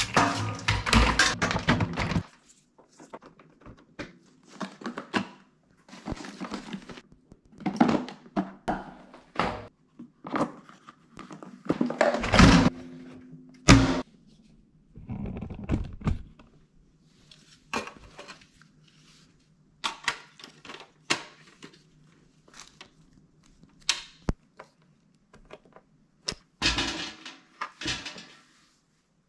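Irregular knocks, clunks and clattering of plastic shop-vacuum parts being handled and fitted together, in uneven bursts with short quiet gaps.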